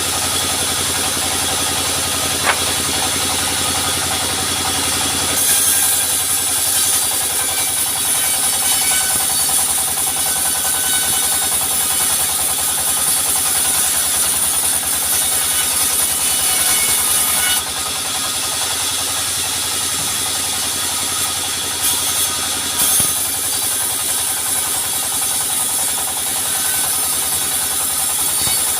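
Sawmill machinery running with a steady engine drone. A brighter, hissing layer sets in about five seconds in, drops away at about eighteen seconds, and returns from about twenty-three seconds.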